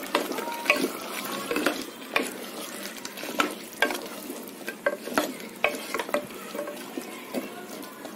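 Wooden spatula stirring taro root pieces in a tomato-onion masala in a metal pressure cooker, knocking and scraping against the pot at irregular intervals over the sizzle of the masala.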